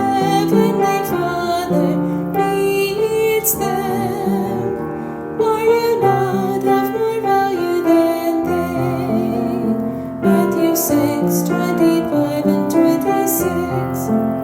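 A woman singing a slow, gentle melody with vibrato over piano accompaniment.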